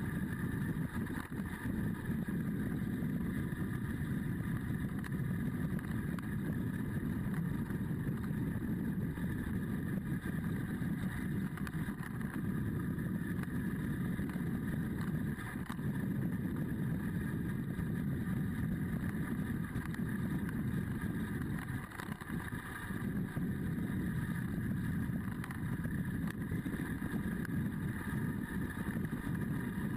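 Adventure motorcycle's engine running steadily under way, with wind noise over it, easing off once briefly about two-thirds of the way through.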